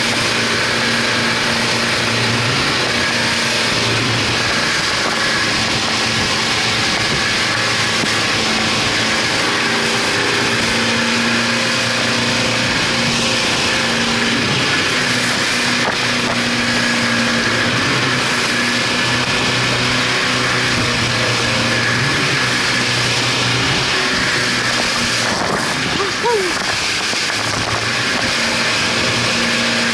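Twin 200 hp outboard motors running steadily at high speed as the boat pounds through rough water, with a constant rushing hiss of wind and spray over the microphone.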